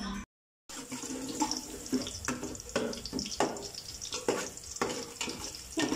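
Water running from a kitchen tap into a sink, with irregular splashing, after a brief dropout near the start.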